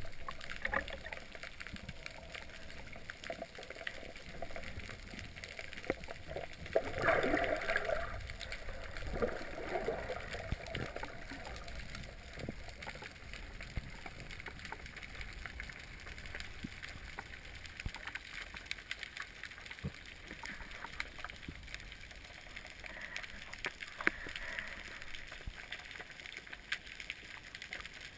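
Muffled water noise picked up by a camera in a waterproof housing during a spearfishing dive: gurgling and sloshing with small ticks and clicks, and a louder rush of water about seven seconds in.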